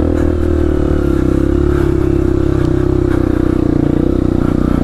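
Dirt bike engine running steadily under throttle, its firing pulses even and its pitch nearly constant.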